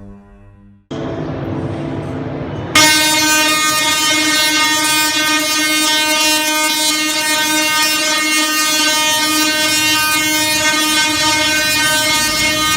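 A rumbling noise, then about three seconds in a loud, steady horn blast with a rich, buzzy tone that holds without changing pitch.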